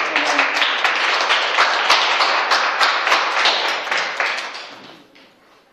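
Small group applauding with dense clapping that thins out and stops about a second before the end.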